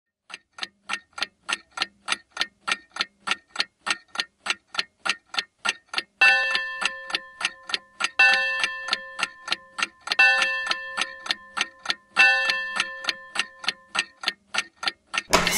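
Clock ticking in a quick, steady rhythm, about four ticks a second. From about six seconds in, a bell chime strikes four times, about two seconds apart, each strike ringing out over the ticking. A sudden loud burst comes right at the end.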